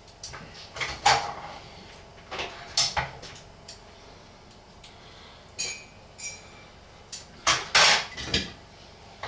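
Kitchen knife knocking and scraping on a wooden chopping board while the veins are cut out of liver: scattered sharp knocks and clatter, loudest about a second in and near the end, with a short ringing metal clink a little past halfway.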